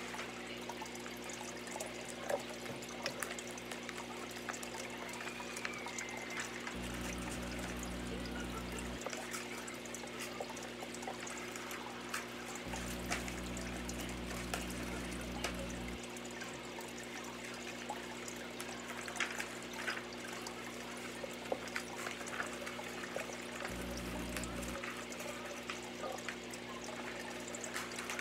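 Steady hissing room noise with scattered small clicks and rustles of objects being handled and set down.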